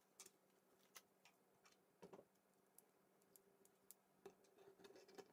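Faint, scattered clicks of plastic K'NEX rods and connectors being handled and snapped together on a table.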